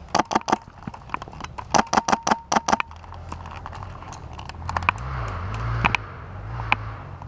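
Airsoft guns firing in short rapid bursts, about eight shots a second, twice in the first three seconds. Between about five and six and a half seconds there is a rushing noise with a low rumble.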